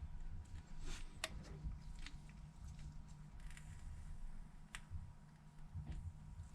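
Faint handling noise: a few light clicks and taps over a low steady hum.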